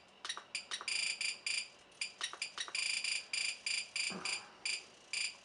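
Radio-control transmitter beeping as its keys are pressed to enter throttle-curve values: a quick, irregular run of short high-pitched beeps, some longer than others.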